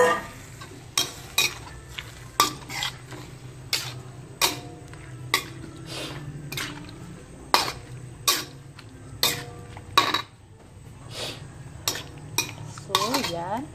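Metal spoon stirring Malabar spinach and egg in a metal wok: irregular clanks and scrapes of spoon on pan, about two a second, each ringing briefly.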